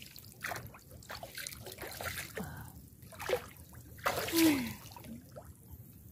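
Shallow muddy water sloshing and trickling in a field ditch as someone wades and gropes by hand in a mud hole for fish, with scattered small splashes and short gurgles; the loudest is about four seconds in.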